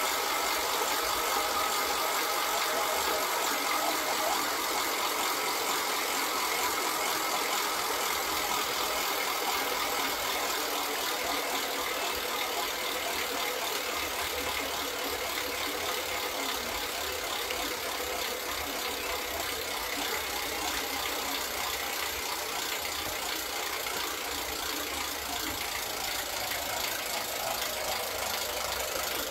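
Ratchet kite-line reel (carretilha de catraca) spinning freely, its ratchet giving a steady, fast run of clicks like a buzz.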